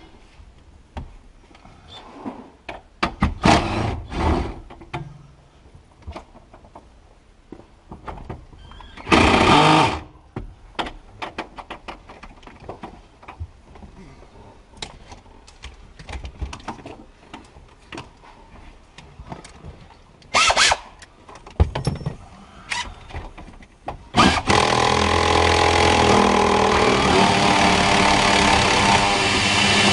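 Tools clicking and knocking against the truck's dashboard parts, with short bursts of a power drill, then the power drill running steadily for the last six seconds or so.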